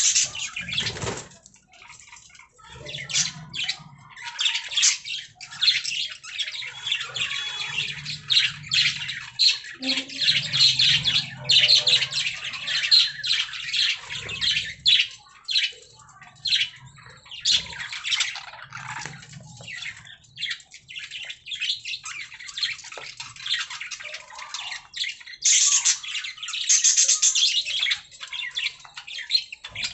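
Budgerigars chirping, chattering and squawking continuously, a dense run of quick, high-pitched chirps and warbles.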